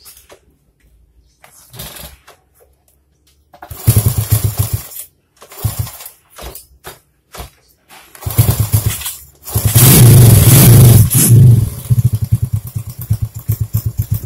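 Honda C70 Cub's 122cc four-stroke single being started, its racing cam just moved one tooth on the timing. The first tries fire in short bursts and die. About eight seconds in it catches and runs loud for a couple of seconds, then falls back to slower, uneven firing.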